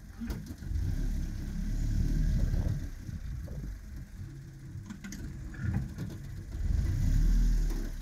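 Quad bike (ATV) engine running under load as it crawls over rough ground, swelling louder twice: about a second in and near the end. A few short knocks come as it jolts along.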